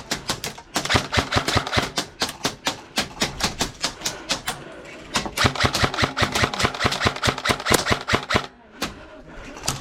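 Airsoft gun firing long rapid bursts of shots, about ten a second, in two runs of three to four seconds with a short pause between them.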